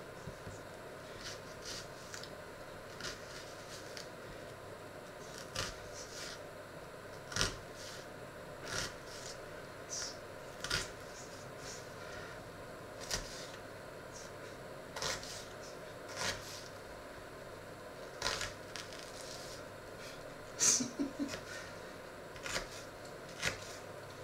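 Small knife peeling and cutting an onion on a cutting board: scattered single clicks and taps of the blade on the board every second or two, with a quick run of louder cuts a few seconds before the end.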